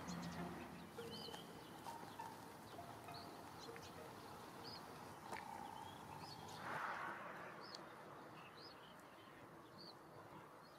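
Faint birdsong in open farmland: a small bird repeats a short high chirp every second or so. There is a brief soft rush of noise about seven seconds in.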